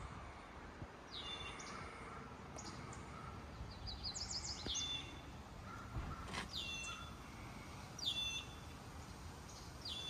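A songbird calling: a short high note sliding downward, repeated every one and a half to two seconds, with a quick run of rising notes about four seconds in. A faint low rumble runs underneath.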